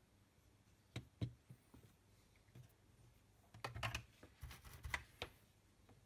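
Small clicks and knocks of a circuit board and its parts being handled and set down on a desk: two taps about a second in, then a quick cluster of clicks between about three and a half and five seconds.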